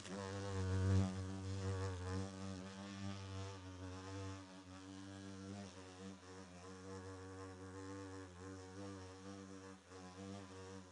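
A fly's buzzing drone, steady with a slightly wavering pitch. It is louder for the first couple of seconds, then continues more quietly.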